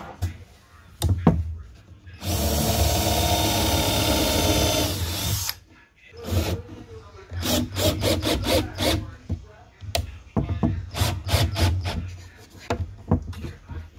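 Cordless drill running at the plywood workbench top: one steady run of about three seconds starting about two seconds in, then several short bursts and knocks as it is worked and handled against the board.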